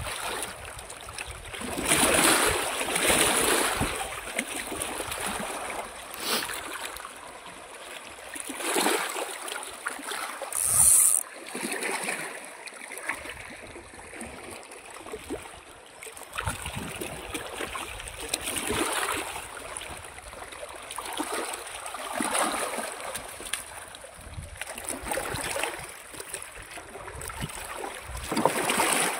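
Small waves lapping and splashing against a rocky shoreline, coming in recurring washes every few seconds.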